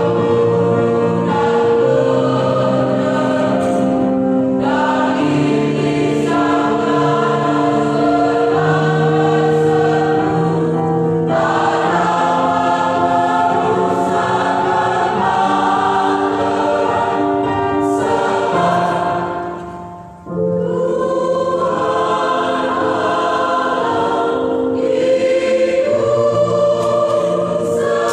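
Church choir singing a hymn in several voice parts, holding long notes. The sound falls away briefly about twenty seconds in, then the choir comes back in.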